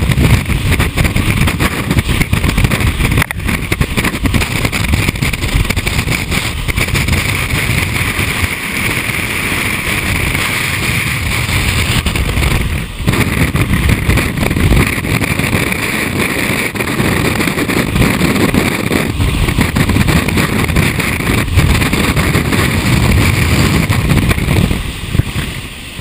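Typhoon wind blasting across the camera microphone: a loud, unbroken rushing noise with heavy low buffeting rumble that rises and falls with the gusts, dropping off near the end.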